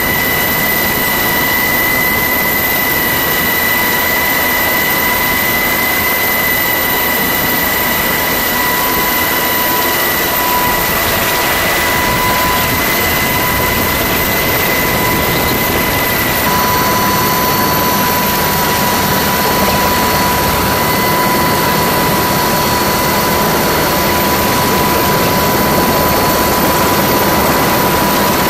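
Navy MH-60S Seahawk helicopter hovering, heard from inside the open cabin door: a loud, steady turbine and rotor roar with a constant high whine, and a fainter higher whine joining about two-thirds of the way through.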